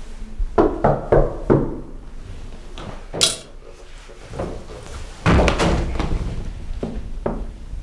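Knocking on a door: four quick knocks about half a second in. A short hiss comes near the middle, and a few seconds later there are louder door thuds as it is opened.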